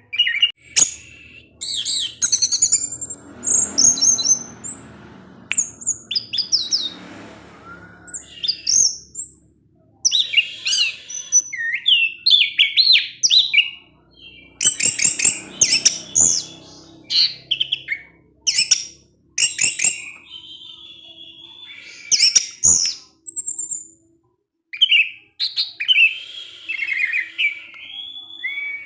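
Orange-headed thrush singing a long, varied song of rapid chirps and sliding whistles in quick phrases, broken by short pauses.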